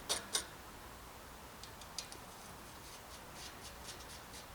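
Small clicks and taps of a bicycle caliper brake being handled and offered up to the frame: two sharp clicks at the start, a smaller one about two seconds in, then faint scattered ticks.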